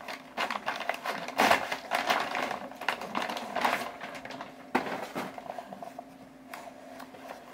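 Paper and cardboard rustling and scraping as a cardboard mailer envelope is handled and opened, in short irregular bursts, with a sharp tap a little under five seconds in. A faint steady hum runs underneath.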